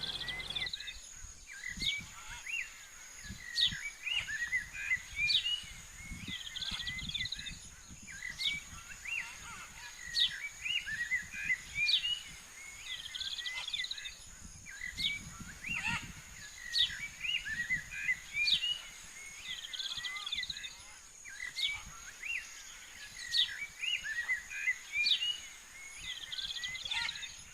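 Several birds singing and calling, with repeated short chirps and quick high notes that drop sharply in pitch. A steady high-pitched tone runs underneath, with faint low rumbles coming and going.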